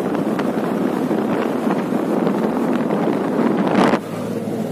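Wind rushing and buffeting on the microphone of a car moving at speed, with the car's road noise under it. It drops off suddenly about four seconds in to a quieter, steady low hum.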